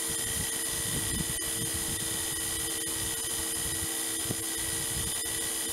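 KJ66 model jet turbine spun up by its electric starter motor, a steady drill-like whine made of several constant tones.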